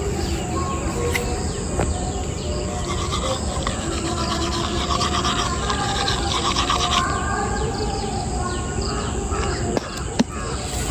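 Outdoor rural ambience: birds calling over a steady chirring of insects.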